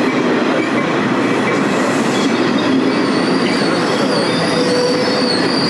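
Passenger train running, heard from on board: a loud steady rumble of wheels on rail, with a high wheel squeal joining about halfway through.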